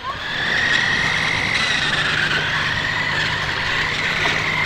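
Battery-powered remote-control toy car's electric motor whining steadily as it drives, a high wavering whine over a low hum.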